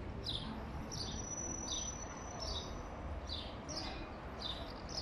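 A songbird repeating a short, high, falling chirp, about one every two-thirds of a second, over a low rumble.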